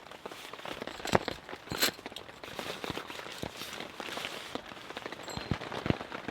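Steady light rain pattering on a tarp, with many irregular sharp taps and crackles over it; the loudest taps come about a second in, near two seconds and near the end.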